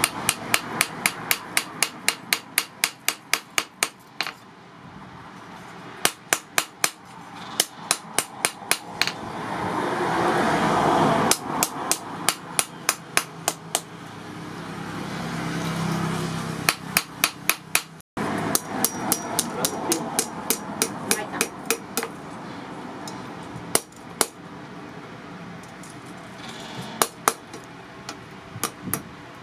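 Hand hammer forging red-hot steel from an old file on a steel anvil: quick runs of sharp metallic blows, about three to four a second, broken by short pauses. In some pauses a broad rushing noise swells and fades.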